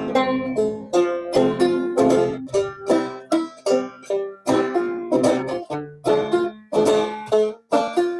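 Clawhammer banjo played without singing: a steady rhythm of sharp plucked notes and brushed strums.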